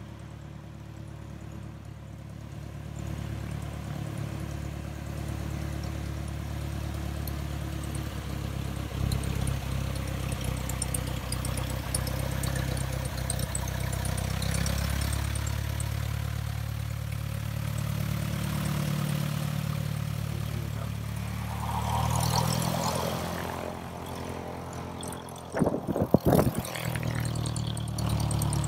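Cessna 172's piston engine and propeller running at taxi power. The sound grows louder over the first few seconds as the plane taxis close by and past, then holds steady. A few sharp loud crackles come near the end.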